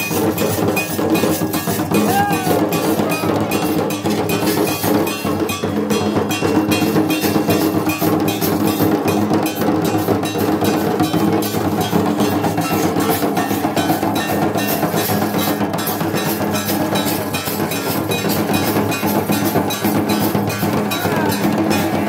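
Live traditional Santali drum music: barrel drums beaten in a fast, steady rhythm, with small metal hand cymbals clashing along.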